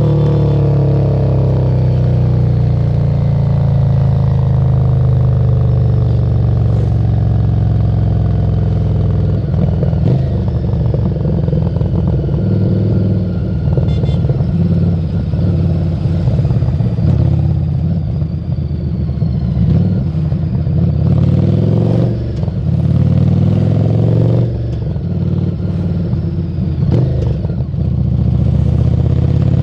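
Harley-Davidson Street 750's V-twin engine running through a Screamin' Eagle exhaust while riding. For the first several seconds it holds a steady note that slowly falls in pitch. Then it turns to a rougher, uneven lope with throttle changes.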